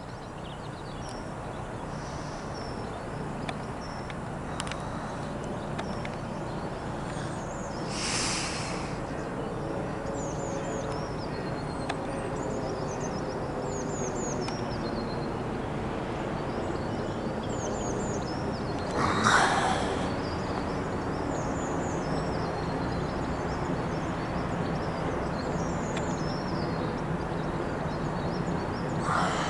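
Airbus A320-232 jetliner with IAE V2500 engines climbing overhead: a steady jet rumble that slowly grows louder, with a faint tone gliding slowly down in pitch. Small birds chirp throughout, and short rushes of noise come about 8 and 19 seconds in, the second the loudest moment.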